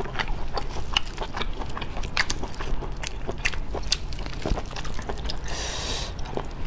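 Cooked sea snail shells being handled with gloved hands, clicking and clacking irregularly as they knock together and against the platter, with a short rasping noise near the end.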